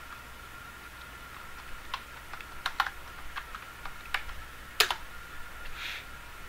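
Typing on a computer keyboard: a run of irregular key clicks, with one louder keystroke about five seconds in, over a faint steady high tone.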